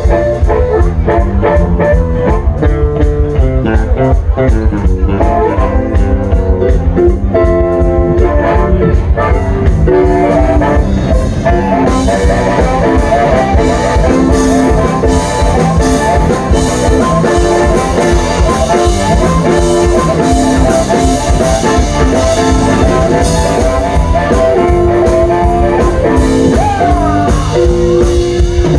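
Live blues band playing an instrumental break of a boogie-blues song, with a steady beat.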